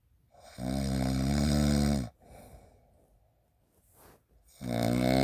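Snoring: two long, deep snores about four seconds apart, each lasting about a second and a half, with faint breathing between them.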